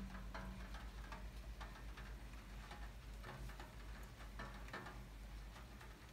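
Raindrops dripping onto a wet window ledge, light taps at an irregular pace, over a low steady hum.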